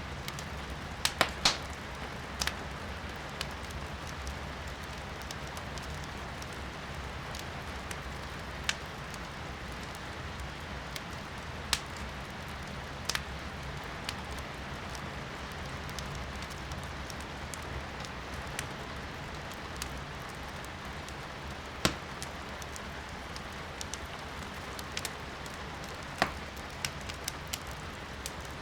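Wood fire crackling in a fireplace, with sharp pops here and there (a quick cluster about a second in, then single ones every few seconds) over a steady hiss of rain.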